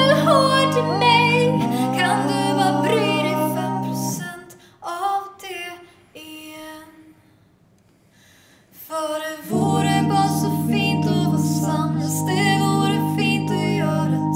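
A woman singing a ballad in Swedish to piano accompaniment. About four seconds in the music drops away to a near-silent pause with a few faint notes, then piano chords and voice come back in together.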